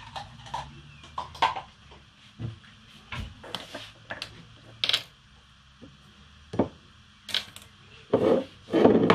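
A string of separate clicks and knocks of kitchen items being handled, some ringing briefly, with two louder, longer sounds near the end.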